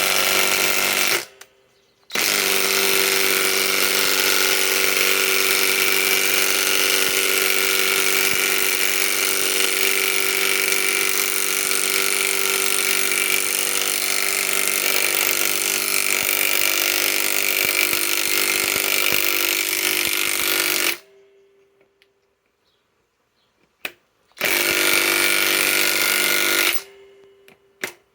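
Flex FX1451 mid-torque cordless impact wrench hammering as it drives a 10-inch lag screw into wood. A short burst, then one long run of about nineteen seconds, a pause of a few seconds, then another short burst.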